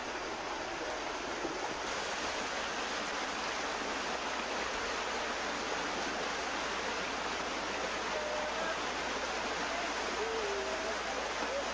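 Small waterfall pouring over rocks into a stream, a steady rush of water.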